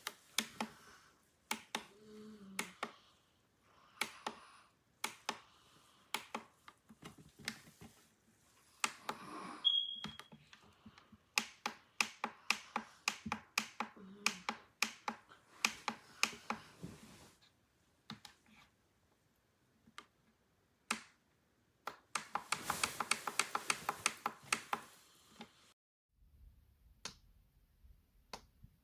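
Plastic buttons on a sunrise alarm clock being clicked again and again, in single clicks and quick runs, with one dense fast run of clicks past the middle. A short high beep sounds about ten seconds in.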